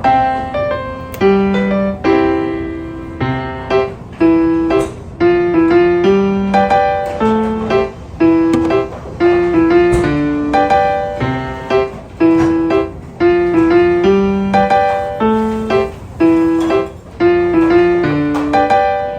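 Background music: piano playing a steady, rhythmic melody of struck notes.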